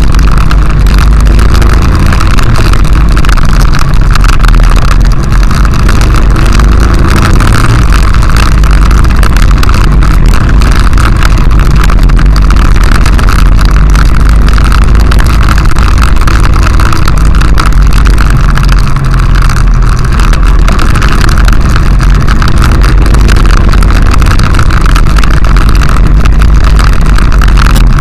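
Honda XRV750 Africa Twin's V-twin engine running steadily while riding on a dirt road, heard very loud through a bike-mounted camera along with wind and riding noise.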